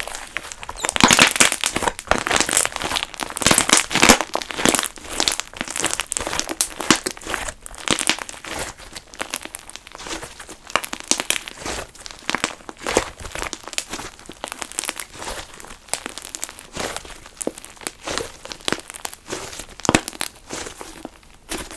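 Funfetti slime being squeezed, stretched and poked by hand: a dense run of small crackles, clicks and pops, busiest in the first few seconds.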